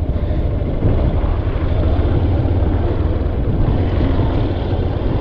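Honda Hornet 2.0 motorcycle's single-cylinder engine running at low speed as the bike rides over a loose-stone riverbed, a steady low rumble with road and wind noise.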